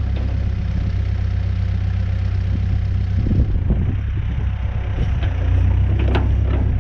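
New Holland B100B backhoe loader's diesel engine running steadily, with a few short metallic knocks in the second half.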